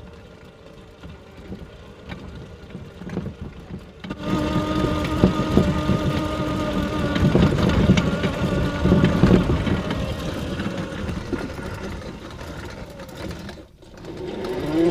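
Small electric drive motor of a homemade barrel car running with a steady whine, with clicks and knocks from the frame and wheels over rough ground. It is fainter at first and grows louder from about four seconds in as the car comes close.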